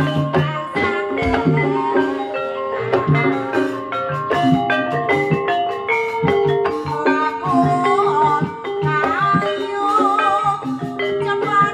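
Javanese gamelan music: struck bronze kettle gongs and metallophones playing a busy, rhythmic interlocking pattern, with drums. A wavering higher melody comes in about eight seconds in.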